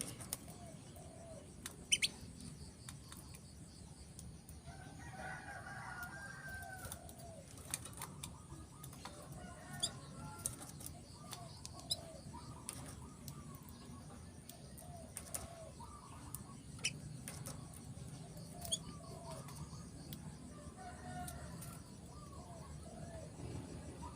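A caged male canary flutters and hops about, giving a few brief high chirps rather than full song. Fainter, lower bird calls repeat in the background over a steady low hum.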